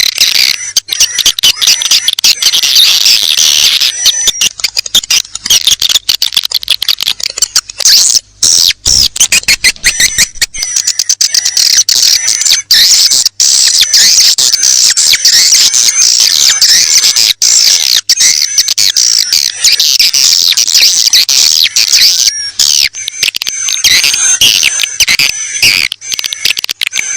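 Recorded calls of edible-nest swiftlets: a loud, dense chorus of rapid high-pitched chirps and twitters with no pause. This is a swiftlet-farming lure call, played to draw swiftlets into a new nesting house.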